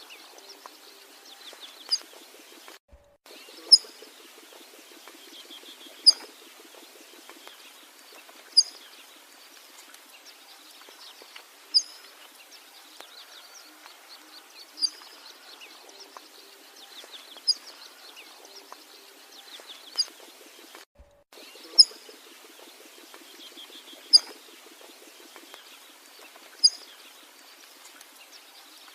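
A bird gives a short, sharp high call about every two and a half seconds over a steady background of faint chirping and trilling. The sound drops out briefly twice.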